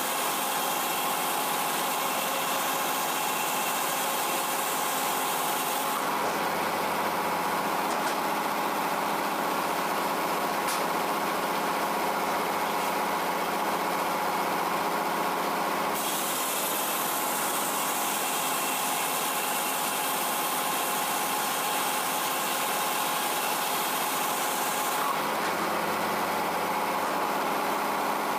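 Frick 00 circular sawmill running off its stationary power unit: a steady engine drone, joined twice by the high hiss of the big circular blade cutting through a chestnut oak quarter, first for about six seconds, then for about nine seconds past the middle.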